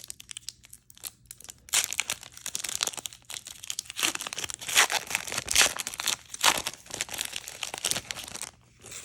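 Plastic wrapper of an Upper Deck Marvel Annual trading card pack being torn open and crinkled by hand. It comes in uneven bursts with brief pauses, soft at first and louder from about two seconds in, and stops shortly before the end.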